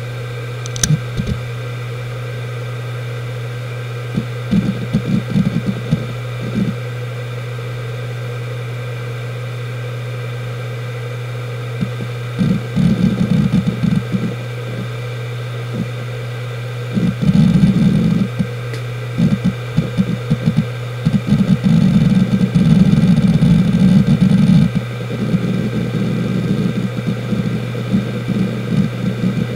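Samsung SpinPoint F1 HD103UJ 1TB 7200 rpm hard drive spinning with a steady hum, its heads seeking in spells of rapid clicking chatter as it reads during a Windows boot. The seeking is sparse at first and becomes almost continuous from about halfway in.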